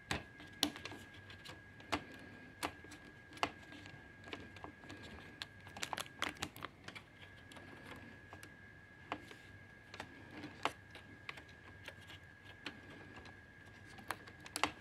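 Irregular light plastic clicks and taps as parts inside a Brother MFC-J4620DW inkjet printer are handled and clipped into place, with a quicker cluster about six seconds in. A faint steady high tone runs underneath.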